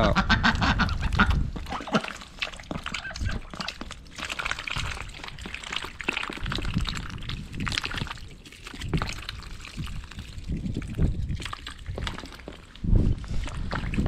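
White domestic ducks quacking while they dabble and splash with their bills in a tub of water, feeding on mealworms thrown in. The splashes come as many short, irregular sounds.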